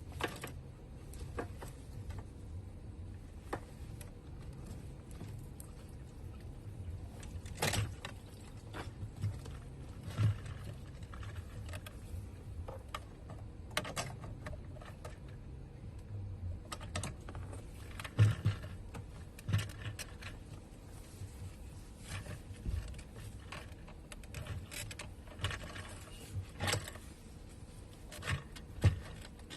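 Irregular clicks, knocks and scrapes of hard plastic and metal parts being handled, as a fuel pump module is worked into its fuel tank opening to find its seat, with a few sharper knocks among them.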